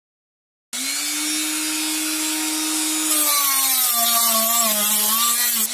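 Rotary tool with a rubber sanding drum running at speed, its sound starting abruptly under a second in. From about three seconds in its motor pitch drops and wavers and a gritty hiss rises as a 4 mm wooden dowel is fed against the drum, sanding a flat on it.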